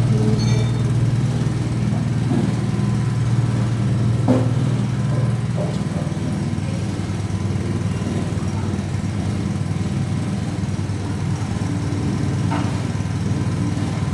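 Small Honda GX petrol engine running steadily under load, driving a vertical coconut-milk press as grated coconut with added water is pressed. Its steady hum turns rougher and less even about five seconds in.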